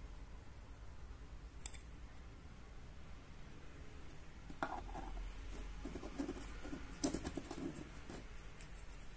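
Faint handling noises of small plastic pieces and paper stickers on a desk mat: a single light click about one and a half seconds in, then irregular scraping and rustling with a few clicks from about halfway, the sharpest click near the end.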